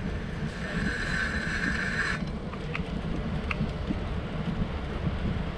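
Wind buffeting the microphone and a low rumble as a bicycle rolls along a paved path. A steady high-pitched whine sounds for about a second and a half near the start and cuts off suddenly, followed by a couple of faint short high blips.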